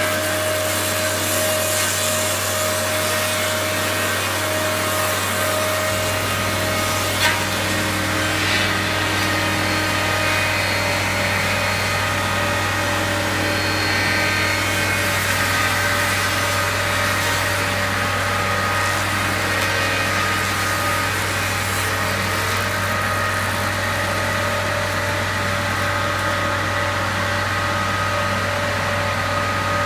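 Groomer-mounted brush cutter running and cutting brush, with a steady whine over the drone of the carrier machine's engine. A single sharp crack about seven seconds in.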